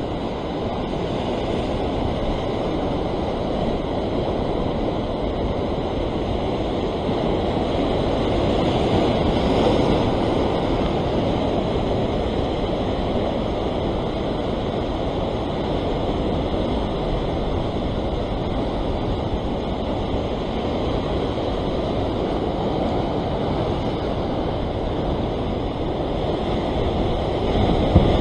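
Rough sea breaking and washing over coastal rocks, a steady rushing surf noise, with wind buffeting the microphone and a brief thump near the end.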